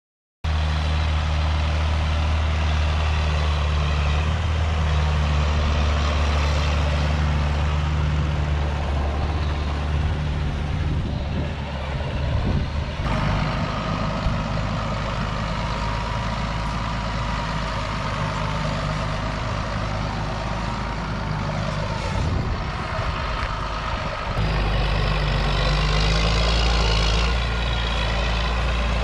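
John Deere 7710 tractor's six-cylinder diesel engine running steadily as it pulls a trailed field sprayer, with a higher whine over the low engine note. It starts abruptly about half a second in, and its character changes suddenly twice, near the middle and about five seconds before the end.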